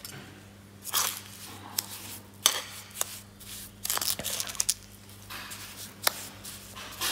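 A spatula mixing moist, crumbly soil in a dish, with irregular scrapes and clicks against the dish as the soil is worked for a liquid limit test. A steady low hum runs underneath.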